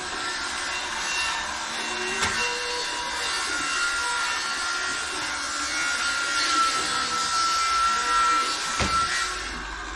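Electric saw running with a steady rasping whine, its pitch sinking slightly, loudest about six to nine seconds in. A single sharp knock comes just before the end.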